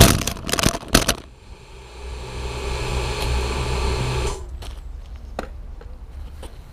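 MJX Bugs 3 quadcopter crashing: its flight noise breaks off into a quick series of knocks and clatters as it hits and tumbles on rubber-crumb ground. Its motors then run on at low speed as a steady hum for about three seconds and cut off suddenly, leaving only faint ticks.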